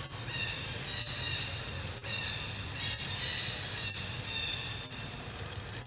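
Monkeys giving high-pitched, drawn-out calls, several overlapping, over a steady low rumble.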